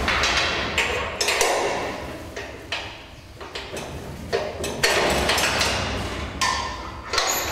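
Irregular knocks and bangs, about eight spread unevenly through the stretch, over a background of noisy clatter.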